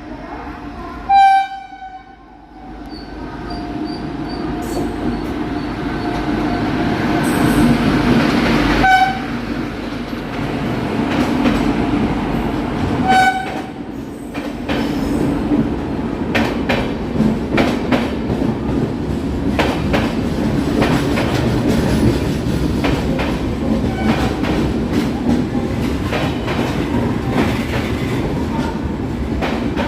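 A train rolling through points as it changes track. Short horn blasts sound about a second in, again around nine seconds and again around thirteen seconds, over a rumble that builds. Through the second half, rapid clacking of wheels over rail joints and points runs on.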